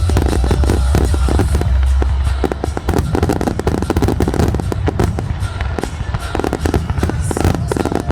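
Fireworks finale: a rapid, unbroken barrage of bangs and crackles. A heavy low rumble runs under it for the first couple of seconds.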